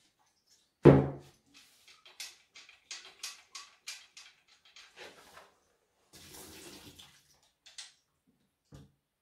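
A plastic jug set down hard on a table about a second in, the loudest sound, followed by clicks and knocks of a Husqvarna chainsaw being handled. Near the end, liquid sloshes and pours from the saw's tank into the jug for about a second, as the tank is emptied for flushing.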